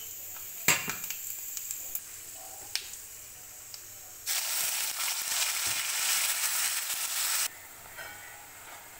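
Food sizzling in hot oil in a steel pan, with a sharp knock about a second in. About four seconds in a much louder sizzle starts as a wet ground paste fries in the oil, and it cuts off abruptly some three seconds later.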